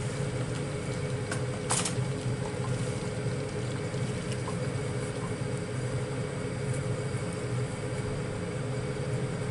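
Steady fan hum with a low drone under it, from the kitchen's appliances as the induction cooktop runs. A single short clatter comes about two seconds in.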